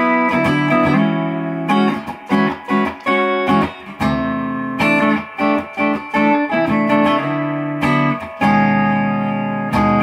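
Electric guitar, a Squier Standard fitted with Guitar Madness pickups, played through a small combo amp: short chopped chord stabs, with a longer chord left ringing about four seconds in and again near the end. The tone is warm and punchy without being harsh in the mid-range.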